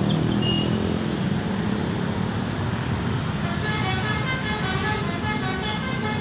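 Tour bus engine and traffic running, then from about halfway a telolet multi-tone bus horn starts playing a quick tune of short repeated notes.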